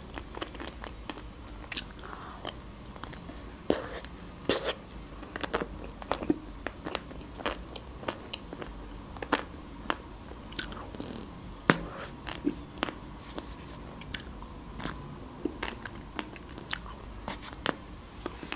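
Mouth sounds of eating a chocolate-coated Magnum ice cream bar: bites and crunches of the chocolate shell and chewing, heard as irregular sharp clicks.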